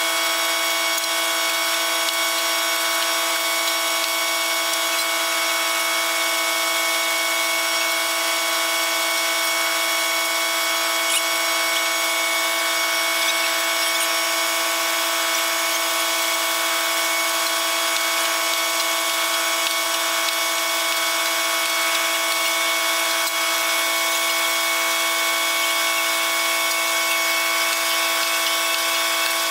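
Fishing boat's deck machinery running steadily while the seine net is hauled aboard: a constant mechanical whine made of several steady tones. Near the end one of the lower tones dips a little in pitch.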